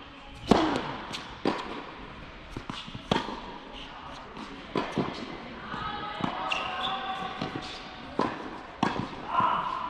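Tennis ball struck by rackets and bouncing on an indoor hard court during a rally: sharp pops a second or more apart, the loudest a serve about half a second in, each ringing in the large hall.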